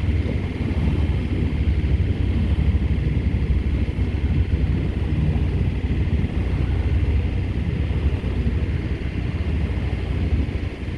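A fishing boat's engine running steadily underway: a continuous low rumble.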